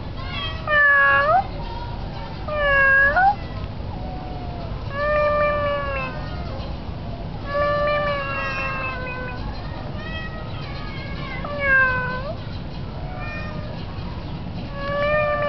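Tomcat meowing repeatedly: about half a dozen drawn-out calls of a second or so each, some bending upward in pitch at the end, calling to its owner. Under the calls is a steady low rumble of wind on the microphone.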